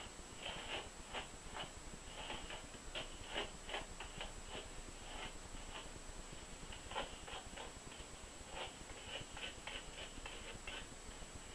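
Hairbrush strokes through thick natural hair: faint short swishes in quick runs of several a second, with a pause of about two seconds near the middle.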